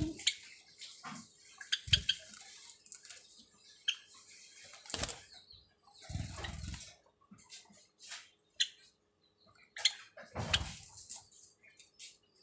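Java sparrows moving about a straw-floored cage: scattered short, high chirps, with wing flutters and rustling that come in louder bursts about halfway through and again near the end.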